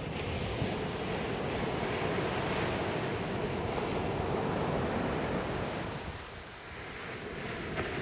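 Small sea waves breaking and washing up a beach: a steady rush of surf that eases off about six seconds in, then swells again as the next wave breaks.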